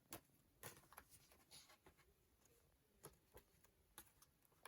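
Near silence: quiet room tone with a few faint, short clicks and rustles.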